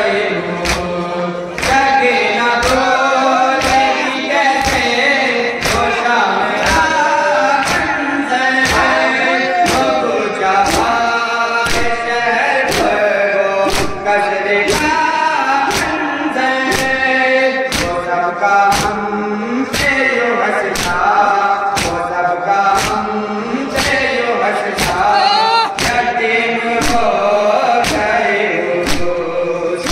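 A group of men chanting a nauha (mourning lament) together, without instruments. Under the chant runs a steady beat of thumps, about three every two seconds, typical of matam (chest-beating) in time with the chant.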